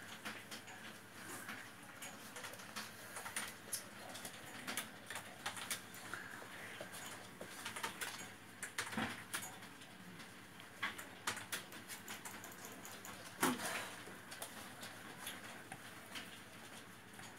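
A puppy scrabbling about on a wooden floor as it is played with: scattered light clicks and taps of its claws, with a few slightly heavier knocks near the middle and again a little later.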